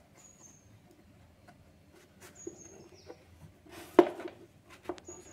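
Cardboard pieces handled and slotted together on a tabletop, with a sharp knock about four seconds in and a lighter click a second later. A few short, high, falling bird chirps sound in the background.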